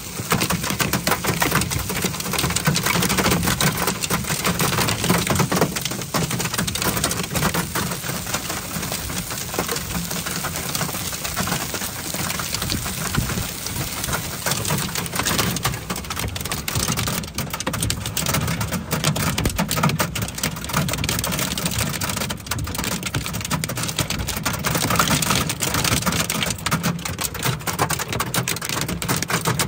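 Heavy thunderstorm rain beating on the car's roof and windshield, a dense, steady patter of drops heard from inside the car.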